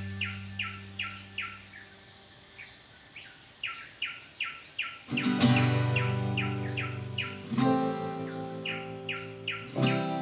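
Calm background music with plucked, guitar-like chords, struck about five seconds in and twice more later, over a small bird's short chirps repeated about three times a second.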